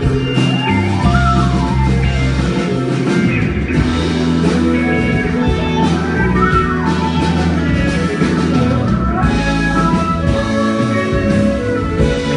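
Live band playing the instrumental intro of a psychedelic-tinged rock song: guitar and drums, with a lead melody that slides up and down in pitch every couple of seconds, before any singing.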